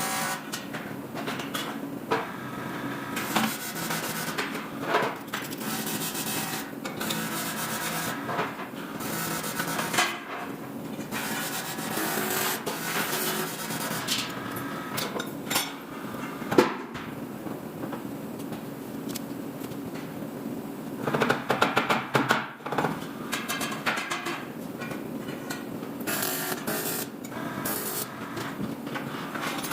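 Workshop metalworking on aluminium ladder parts: intermittent knocks, scraping and short bursts of tool noise. There is one sharp loud knock past the middle and a quick clatter a few seconds later.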